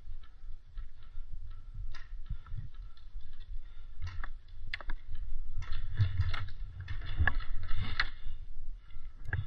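Rustling and handling noise with scattered sharp clicks, busiest from about halfway through, over a steady low rumble.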